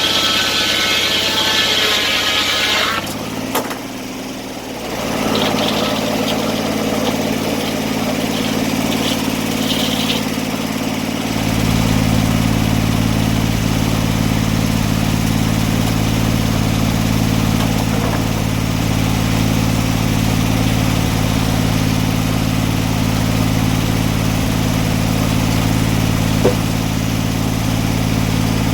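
An engine running steadily. A higher-pitched sound cuts off about three seconds in, and after a brief dip the engine settles into a louder, deeper, even drone from about eleven seconds in.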